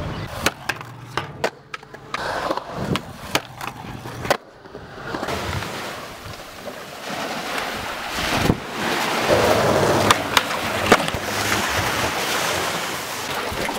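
Sharp clacks and knocks of a skateboard for about four seconds. Then, after a short break, the steady rushing wash of small waves on a sandy beach, with a few more knocks.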